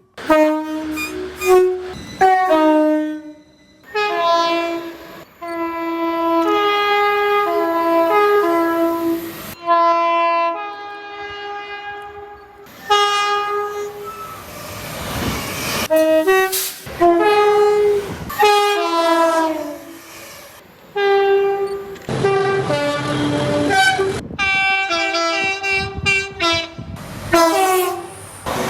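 Train horns sounding a series of blasts, short and long, each a chord of several notes held together, cut together one after another from different trains. About halfway through there is a stretch of rushing noise between blasts.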